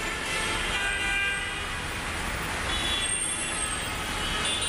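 Steady background din of road traffic, with drawn-out horn-like tones coming and going over it.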